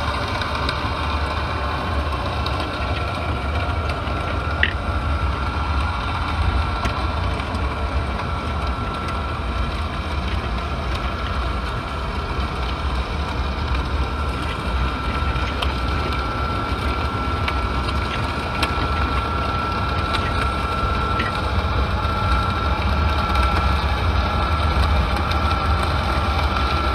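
Underwater ambient noise picked up by a submerged camera inside a crab trap: a steady low rumble with a thin high hum over it, broken by a few scattered clicks.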